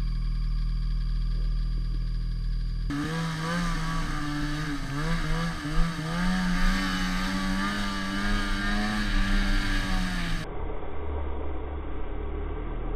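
Snowmobile engine running steadily at low revs, then about three seconds in the engine is heard under way, its pitch rising and falling repeatedly with the throttle. Near the end it gives way to a duller, muffled engine rumble.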